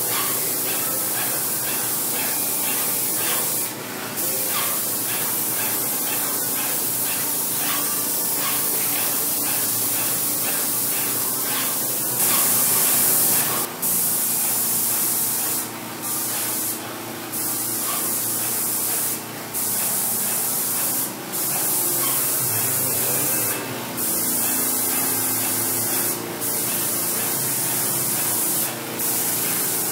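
Titan 440 Multi Finish air-assisted airless sprayer atomizing paint through its spray gun: a steady, loud hiss. It breaks off briefly several times as the trigger is released between passes.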